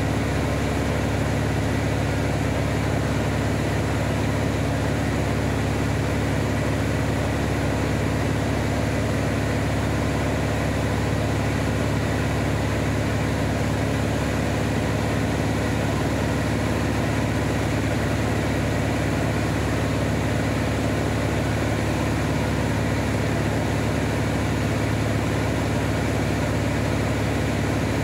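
Van's RV-7A light aircraft's piston engine and propeller running steadily in flight: an even low drone with a few held low tones and a wash of air noise over it.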